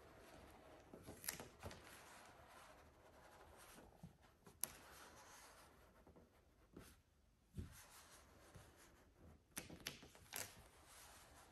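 Faint rubbing of a microfiber cloth pressed across matte black vinyl wrap film as the decal is smoothed onto a car hood, with a few soft clicks as the film is handled.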